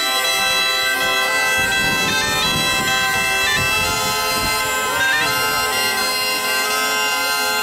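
Southern Italian zampogna bagpipes playing a tune over steady drones, joined by a ciaramella, a folk shawm, on the melody.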